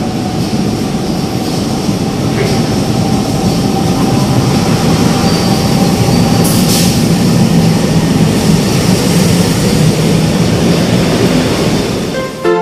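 Passenger train pulling into a station platform: a steady rumble of wheels on rails that grows louder as the cars come alongside, with one brief high hiss about six and a half seconds in.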